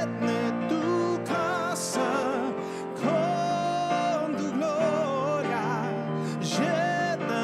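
Worship song: a man singing in Spanish with vibrato over sustained electric keyboard chords.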